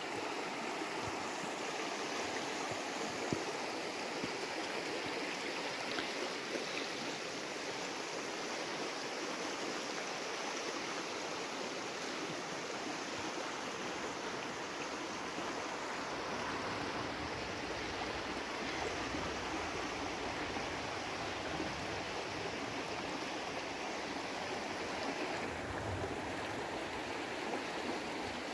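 Shallow river running fast over a stony bed: a steady rushing of water.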